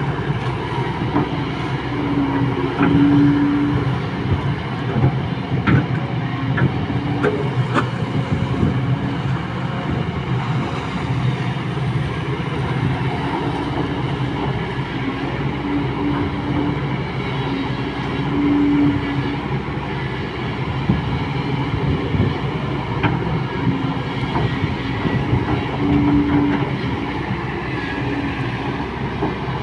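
Kobelco SK200 hydraulic excavator's diesel engine running steadily under working load, with a higher hum that swells and fades every second or two as the arm and bucket are worked, and a few scattered knocks.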